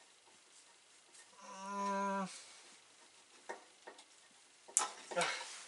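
A short, steady wordless hum from a man, about a second long, starting about one and a half seconds in, then a few light clicks and rustles of plastic wire connectors being handled near the end.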